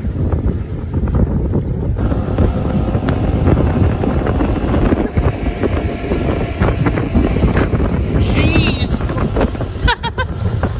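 Wind buffeting the microphone over the steady running of a motorboat's engine. Brief high warbling sounds come through near the end.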